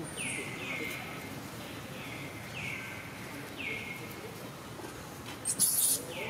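Infant macaque giving a string of short, high squeaks that fall in pitch, about one a second, then a loud, shrill scream near the end as its mother turns it over and handles it.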